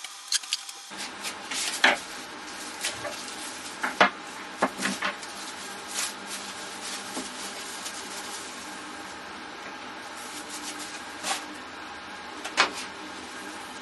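Plastic cling film crinkling and scissors snipping as the film is cut away from a steel bar, with scattered sharp clicks and clinks of metal parts handled on the bench, the loudest about 2 and 4 seconds in.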